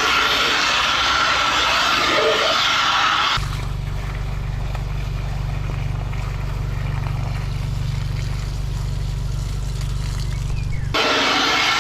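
Mud sucker running with a steady, wide rushing noise. About three seconds in the sound changes abruptly to a dull low rumble with no high hiss, and the rushing noise comes back near the end.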